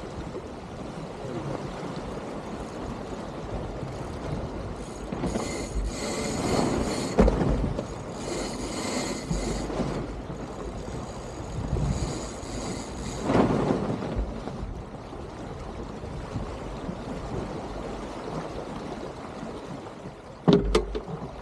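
Water washing along the hull of an Elan 310 sailboat under sail, a steady rush that swells louder twice. Near the end come a few sharp clicks or knocks.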